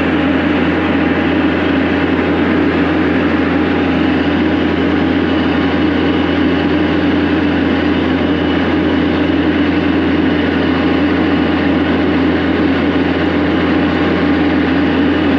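A heavy vehicle engine running steadily at a constant speed, a low hum that neither rises nor falls.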